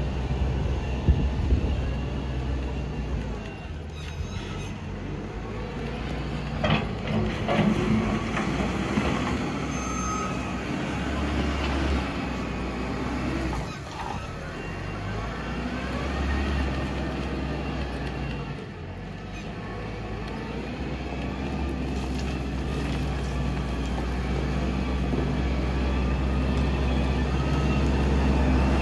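WOLF WL825 wheel loader's Yunnei Euro V diesel engine running steadily while the loader digs into a soil pile and fills its bucket. A few knocks come about a quarter of the way in, and the engine grows louder over the last third as the loaded machine comes closer.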